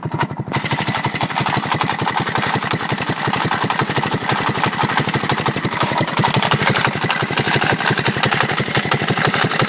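150cc GY6 single-cylinder four-stroke engine running steadily, with an abnormal rattle in its sound that the owner links to the crank or a knock.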